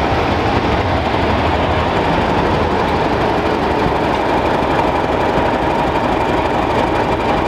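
Class 31 diesel-electric locomotive passing close by and moving away, its English Electric V12 diesel engine running steadily.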